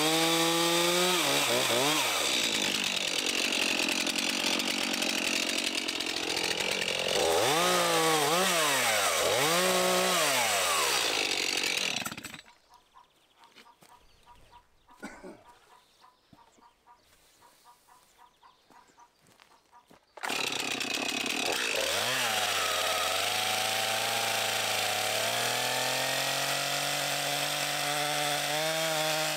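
Stihl two-stroke chainsaw revving and cutting through a log, its pitch dropping under load, then blipped up and down again. It cuts off abruptly about twelve seconds in, leaving near silence for about eight seconds, then is running again at idle, the revs climbing near the end.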